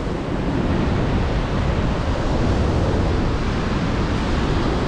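Wind buffeting the microphone together with heavy rain: a dense, steady rushing noise with a deep rumble.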